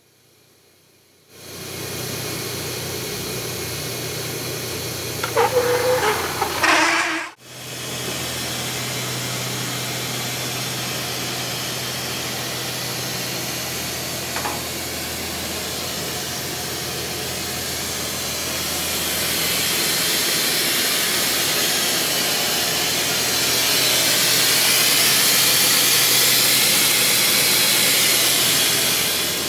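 Trak TMC7 vertical machining center running with a steady hum and hiss. There is a brief loud clatter with a falling squeal about five seconds in, and the sound cuts out for an instant just after. The running sound grows louder in two steps in the second half.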